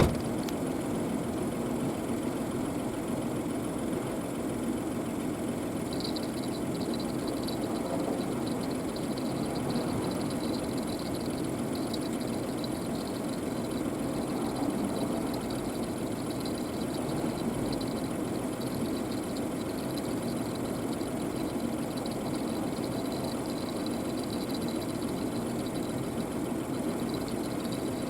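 An engine idling steadily, with faint light ticking over it from about six seconds in.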